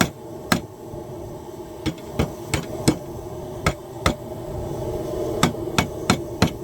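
Hand hammer striking a hot steel tong blank on the anvil in about a dozen irregular blows, some in quick runs of two or three. A steady hum runs underneath.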